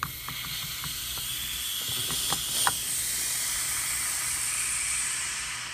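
Air hissing into a vacuum marinating canister as its lid knob is turned to open, releasing the vacuum. A couple of sharp clicks sound a little over two seconds in, and the hiss fades out near the end.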